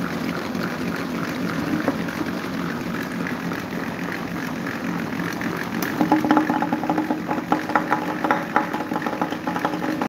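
An orange box fan and several small electric desk fans running together: a steady motor hum and blade whir. About six seconds in, a nearer fan's hum gets louder, with rapid clicking on top.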